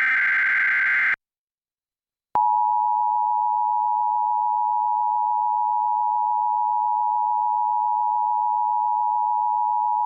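Emergency Alert System broadcast tones: the last burst of the digital SAME header data ends about a second in, and after a short silence the steady two-tone EAS attention signal sounds through to the end.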